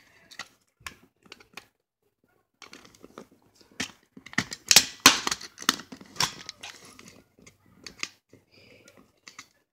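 Plastic case of a Dish Network remote being pried open along its seam with a thin tool: irregular clicks, scrapes and cracks of the plastic, sparse at first and busiest around the middle.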